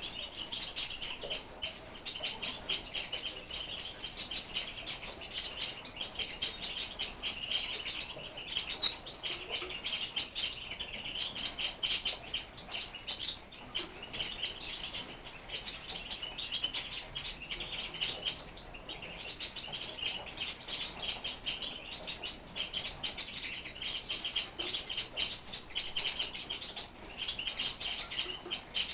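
Lark singing a long, continuous warbling song of rapid high chirps and trills, broken only by a few short pauses.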